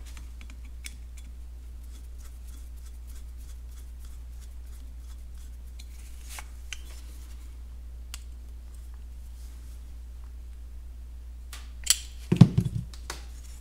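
Faint ticks and scrapes of a screwdriver turning a small threaded drilling plug into a cast carburetor throttle body. Near the end, a few louder knocks as the metal casting is picked up and handled on the bench.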